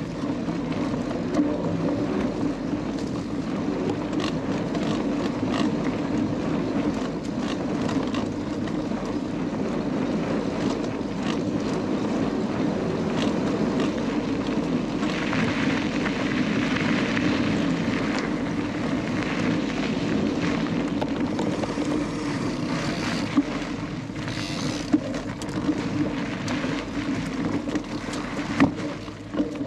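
Canyon Lux Trail cross-country mountain bike ridden along a forest singletrack: a steady rush of tyre and wind noise with a few sharp knocks and rattles from the bike over bumps.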